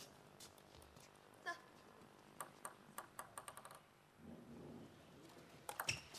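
Faint clicks of a celluloid table tennis ball: a quick run of bounces on the table in the middle, coming closer together, then the first sharp hits of a rally just before the end.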